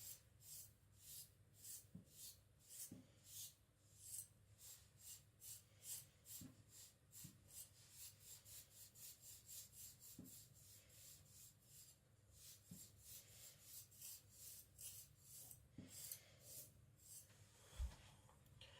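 Kiridashi blade stroked back and forth on a whetstone, a faint, even rhythm of short hissing strokes at a little over two a second. A single dull thump near the end.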